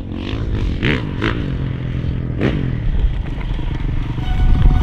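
Motocross bike engine running as it rides in, getting louder near the end.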